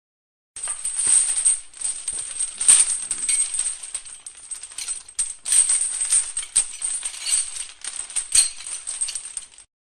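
Metal chain rubbing and clinking against itself, an uneven continuous jangle with a few sharper clinks, starting about half a second in and stopping shortly before the end.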